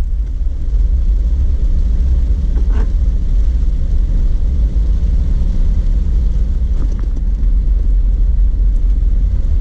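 Jeep Wrangler driving on a dirt road: a steady, loud, low rumble of engine and tyres, with two faint knocks about three and seven seconds in.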